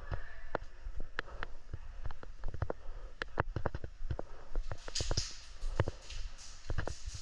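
Footsteps with scattered irregular clicks and knocks, and a brief burst of rustling about five seconds in.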